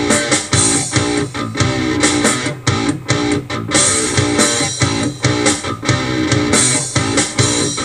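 Polyrhythmic metal groove on electric guitar: riffs chopped by short, sharp stops at uneven intervals.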